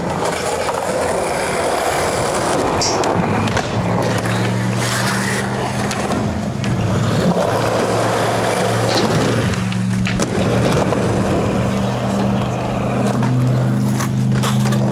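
Skateboard wheels rolling steadily over concrete, with a few sharp clacks of the board.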